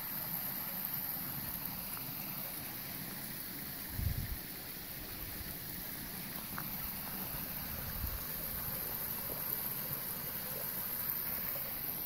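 Small rocky creek trickling and running over stones as a steady rushing water sound. A low thump comes about four seconds in and a fainter one around eight seconds.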